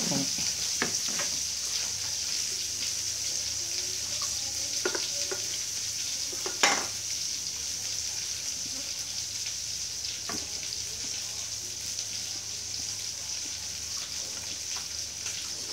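Plates and a spoon knocking on a wooden slatted table as a plate of rice is set down, one sharp knock standing out a little before the middle, over a steady high hiss.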